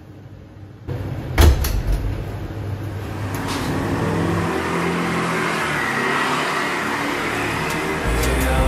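A single thump about a second and a half in, then steady traffic and riding noise from a motor scooter moving along a city street.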